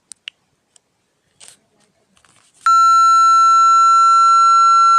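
Censor bleep: a loud, steady, high beep tone starts abruptly a little over halfway through and holds without change. A few faint short clicks come before it.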